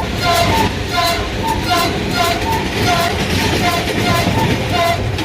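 Passenger train running through a station at high speed, a steady rumbling rush of wheels on rails, over a two-note chime repeating about twice a second.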